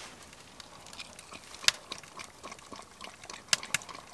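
A Labrador dog lapping up a raw egg from a wooden cup: faint, wet, irregular licking with a few sharp clicks, one about one and a half seconds in and two near the end.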